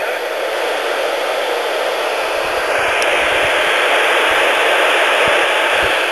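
VHF radio receiver hissing with static from its speaker, a steady even rush with no signal on it. A few soft low thumps sound under it.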